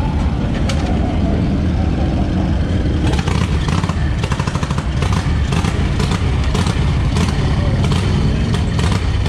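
Vintage motorcycle being kick-started. From about three seconds in, its engine runs with sharp, uneven exhaust pops over a steady low engine rumble.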